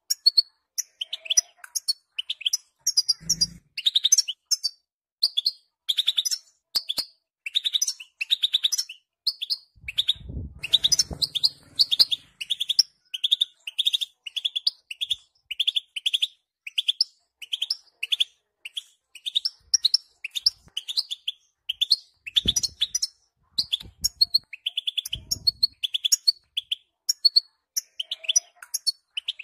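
European goldfinches twittering and singing in quick, tinkling chirps, with a run of evenly repeated notes about two a second in the middle. A few short low thumps are heard now and then.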